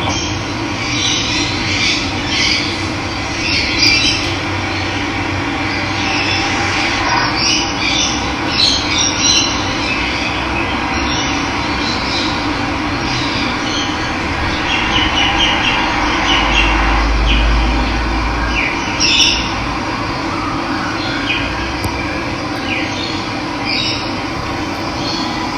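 Steady rush of running water with many birds chirping and calling over it, and a brief low rumble about two-thirds of the way through.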